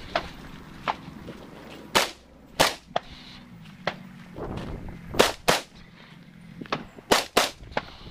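Rifle shots, three loud pairs with each pair fired in quick succession and a couple of seconds between pairs, with fainter single cracks between them.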